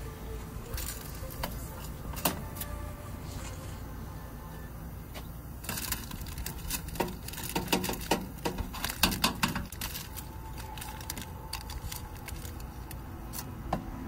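Cherry tomatoes tipped from a metal colander onto a foil-lined oven tray: a run of small knocks, clinks and foil crinkles, thickest in the middle, over a steady low hum.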